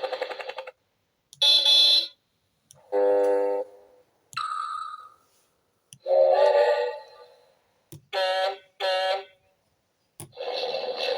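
A LeapFrog talking book's speaker playing a string of about eight short vehicle sound effects, one after another, each set off by touching a picture. A small click comes just before most of them. One of them is a falling whistle about four seconds in, two short tones come in quick succession near the eight-second mark, and a longer effect follows near the end.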